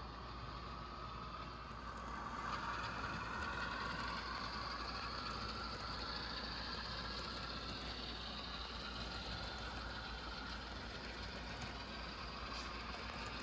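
HO-scale model train running on the layout, a steady mechanical hum and rumble that grows louder about two seconds in as it draws nearer.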